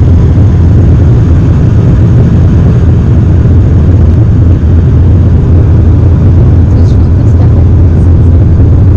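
Loud steady drone and rumble inside the cabin of a high-wing turboprop airliner, heard from a window seat on approach with the landing gear lowered.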